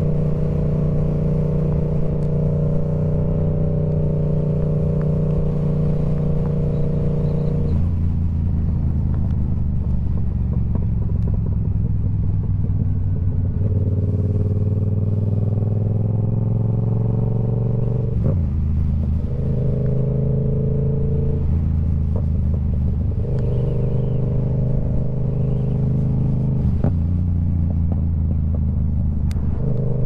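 Yamaha R7's 689 cc parallel-twin running through a TOCE full-system aftermarket exhaust. It holds steady engine speeds for several seconds at a time, and the pitch shifts to a new level every few seconds.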